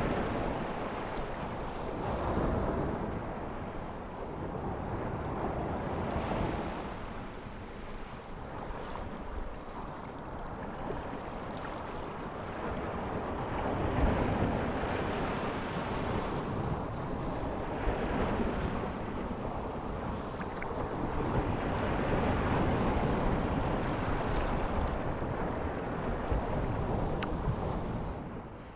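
Ocean surf: waves breaking and washing in, the rush swelling and falling every few seconds, dropping away near the end.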